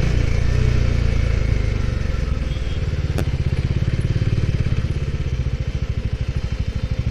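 Bajaj Dominar's single-cylinder engine as the motorcycle rolls to a stop, settling into an idle with an even, rapid low pulse from about two and a half seconds in. A single sharp click comes about three seconds in.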